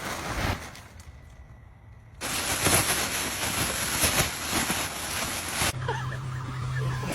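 A loud, even hiss that starts suddenly about two seconds in and cuts off abruptly about three and a half seconds later. It is followed by a steady low hum, which fits the small battery fan that keeps an inflatable costume blown up.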